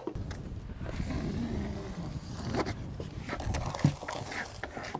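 Faint scraping and a few light clicks of a utility knife trimming seam tape on wall sheathing, over a steady low rumble.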